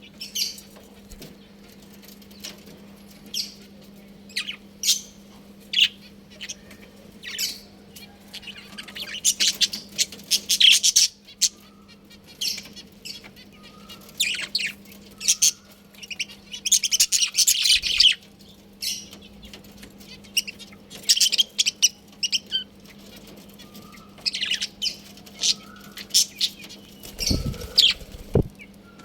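A flock of budgerigars chirping and chattering in short, irregular bursts, busiest in the middle, over a steady low hum. A couple of low thumps come near the end.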